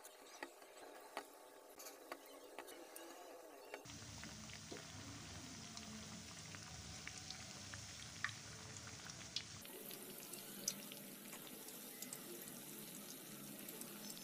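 Spinach pakoras frying in hot oil in a steel pan: a faint steady sizzle with scattered small crackling pops.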